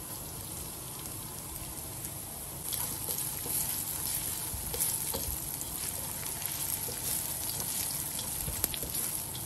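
Chopped garlic and ginger sizzling in hot oil in a wok while a spatula stirs them. The sizzle turns louder and more crackly about a third of the way in.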